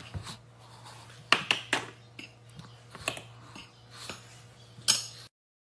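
Metal spoon clinking and scraping against a ceramic plate while scooping ground powder into a jar through a funnel: about six light clinks over a steady low hum. The sound cuts off suddenly near the end.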